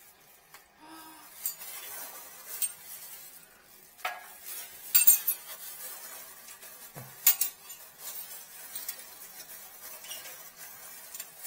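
Metal spoons and a steel wire hook clinking and scraping against a porcelain toilet bowl as spoons are fished out of the clogged trap. The sound comes as a handful of separate knocks, the loudest about five and seven seconds in.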